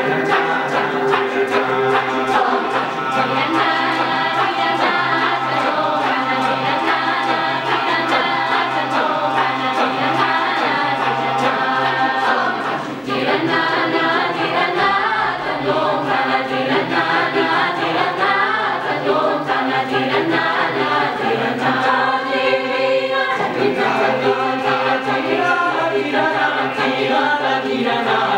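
Mixed choir singing a Tilana on the raga Dwijavanti in wordless vocables, with a steady held drone under the moving melody lines. The sound drops briefly about halfway through, then carries on.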